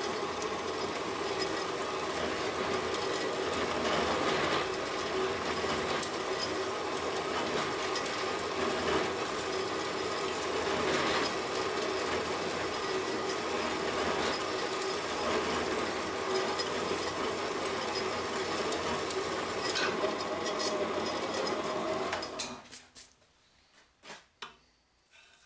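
Vertical bandsaw running, its blade cutting through a metal bar, a steady mechanical hum with blade noise. About 22 seconds in it stops suddenly, and a few light knocks follow.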